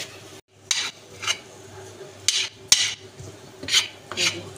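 A spoon scraping and clinking against a cooking pan while mixing spices into boiled potatoes, in a string of short, irregular strokes.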